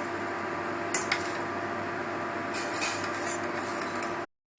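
A spoon stirring in a saucepan of boiling herbal decoction, with a few light clinks against the pan over a steady hiss. The sound cuts off abruptly near the end.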